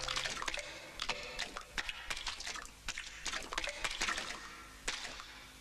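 Wet squelching and dripping sound effects: an irregular run of sharp splats and clicks that grows fainter toward the end.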